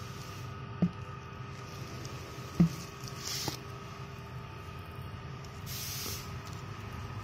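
Hands handling shrink-wrapped stacks of oil seals. Two short knocks, the second louder, then two brief crinkles of the plastic film, over a steady hum.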